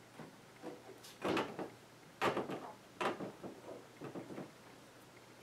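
Handling sounds of a hand pressing a die-cast metal emblem onto a fiberglass hood: a few soft knocks and scuffs, the loudest a little over two seconds in and another about three seconds in.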